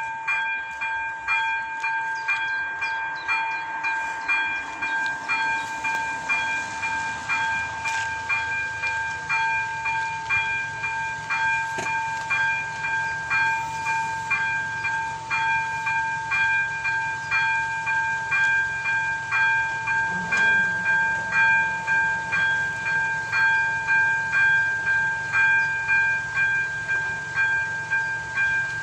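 Electronic level-crossing warning bell (AŽD ZV-02) ringing in an even, repeating rhythm of bright chimes, about one and a half a second: the signal that the crossing is closing for an approaching train.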